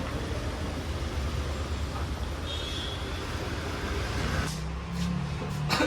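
A motor vehicle's engine running steadily with a low rumble, a low hum joining in about four seconds in, and a sharp knock near the end.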